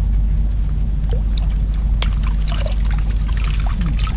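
Water pouring and trickling, with small splashes, over a steady low rumble.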